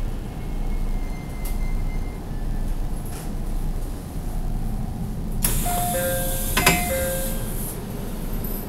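Inside a JR Central 313 series electric train car, a steady low rumble. About five seconds in, the doors open with a loud burst of air hiss and a two-note door chime that sounds twice, with a click in the middle.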